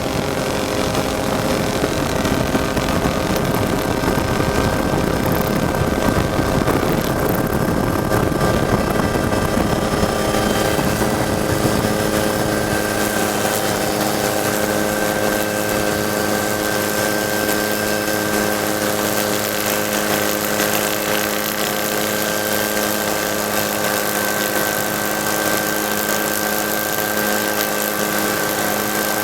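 A vehicle engine running at a steady speed, with a rough low rumble that eases off about halfway through and leaves a steady hum.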